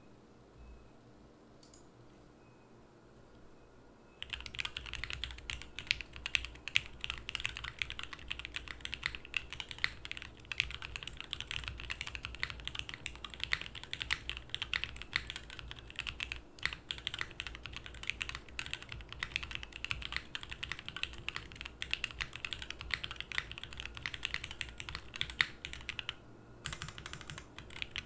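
Fast, continuous typing on a custom mechanical keyboard: lubed H1 switches with Cherry top housings in an aluminium full plate with no foam, under GMK keycaps. The keystrokes start about four seconds in, run dense and even, pause briefly near the end, then resume.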